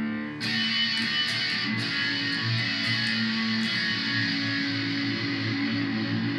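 Electric guitar played through a Korg A5 multi-effects unit's chorus, set to a slow speed: strings struck several times over the first few seconds, then chords ringing with a wavering, pulsing shimmer.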